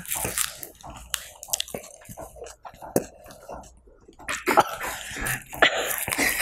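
A person chewing raw garlic cloves close to the microphone, with irregular wet clicks and breathy mouth noises that grow louder and busier in the last couple of seconds.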